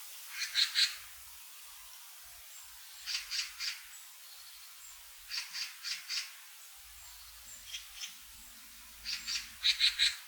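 Forest bird calling in clusters of three or four short, sharp, high notes, each cluster repeated about every two to three seconds.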